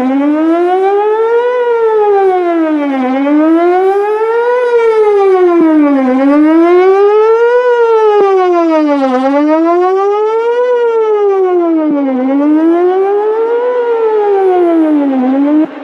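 Whelen WPS-4008 electronic outdoor warning siren sounding a fast wail, its pitch sweeping up and down about an octave, one rise and fall every three seconds. The tone cuts off suddenly at the very end.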